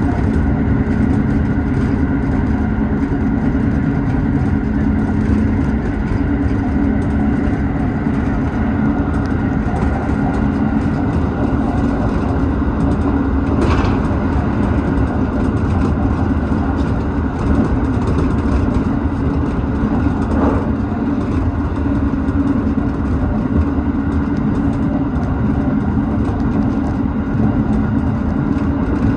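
Tobu 6050 series electric train running steadily along the line, heard from inside the leading car: a continuous rumble of wheels on rail and motor hum, with two brief knocks, one about halfway through and one a few seconds later.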